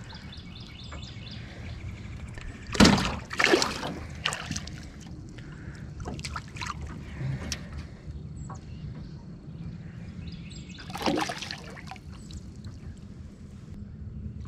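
Water sloshing and splashing against a small aluminum boat as a hooked largemouth bass is brought alongside and landed. There is a cluster of sharp splashes and knocks a few seconds in, and another past the middle.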